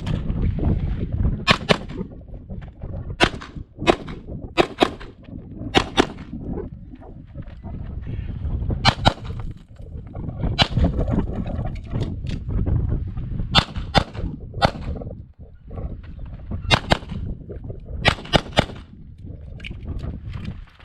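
Pistol shots fired mostly in quick pairs, a fraction of a second apart, with pauses of one to two seconds between strings, about two dozen shots in all. This is a shooter working through a timed IDPA stage.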